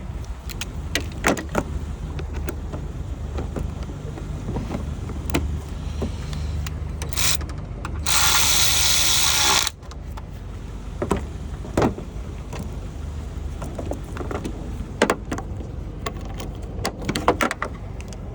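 Scattered clicks and knocks of hand tools and metal parts being handled in a car's engine bay, over a steady low hum. About eight seconds in, a loud hiss lasts under two seconds and stops abruptly.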